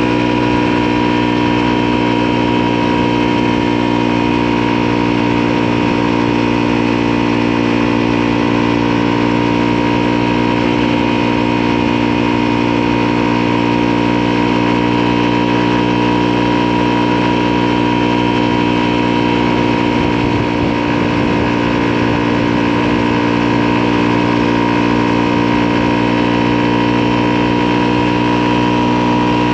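Motorcycle engine running at a steady speed, an even hum whose pitch hardly changes, with a brief slight dip in loudness about twenty seconds in.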